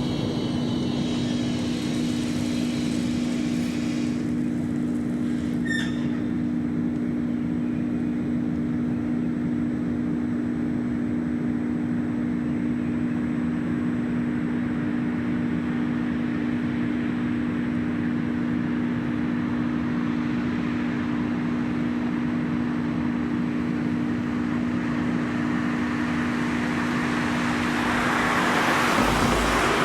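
Tram depot ambience: a steady low two-note hum over a constant background rumble, with a brief high chirp about six seconds in and a rising rush of noise near the end.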